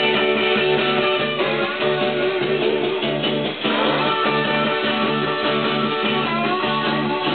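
Guitar music playing from a vinyl record on a Dual 1229 turntable with a Shure cartridge, steady and full, with a regular bass beat. It shows the cartridge playing cleanly in both channels.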